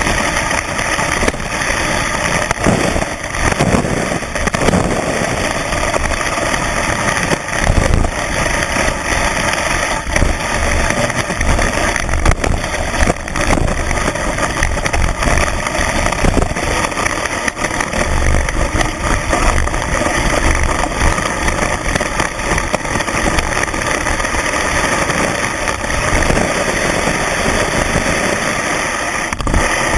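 Skis running fast over snow, heard through a camera mounted on the ski: a loud, steady rumbling hiss broken by frequent knocks as the skis hit bumps.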